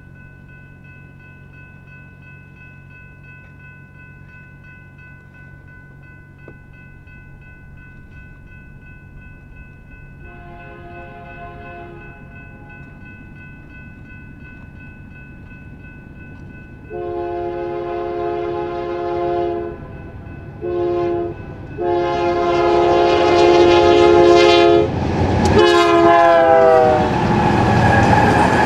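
Union Pacific freight locomotive's air horn sounding the grade-crossing signal, long, long, short, long: the first blast faint and distant, the rest louder as it nears, and the last long blast dropping in pitch as the locomotive passes. Near the end the rumble and clatter of double-stack container cars rolling by takes over.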